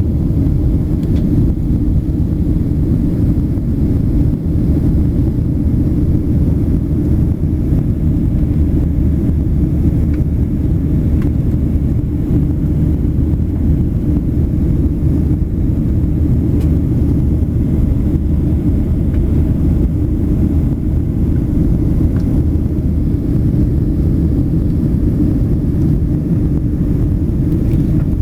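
Airplane cabin noise in flight: a steady low drone of engines and rushing air that stays even throughout, with a constant low hum.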